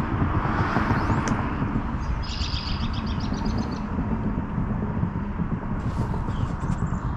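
Wild birds chirping over a steady low rumble, with a rapid high trill about two seconds in and short chirps near the start and near the end.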